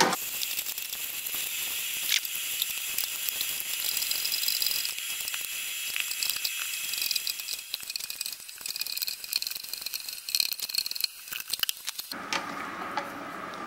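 Crushed malt being poured into the mash water of a Grainfather all-in-one brewing system while being stirred in, a steady high hiss with rattles and clicks from the stirring, growing patchier later on. This is the mash-in stage of an all-grain brew. The sound stops abruptly a little before the end.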